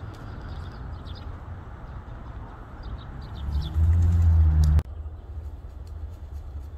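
Faint, short high bird chirps over a steady low rumble. Part way through, the rumble swells loud for about a second and then cuts off abruptly.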